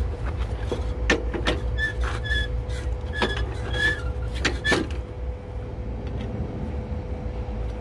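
Steel parts clanking and clinking with a metallic ring, about a dozen knocks between one and five seconds in, as the steel frame of a plastic mulch layer is forced into a tractor's three-point hitch arms. Under them, the steady low running of a small 16-horsepower tractor engine.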